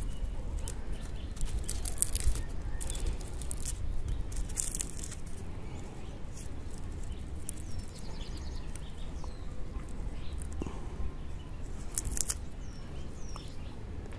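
Hands pulling Echeveria elegans offsets apart: scattered small crackles and rustles of the dry leaves, stems and roots being handled. Faint bird chirps in the second half.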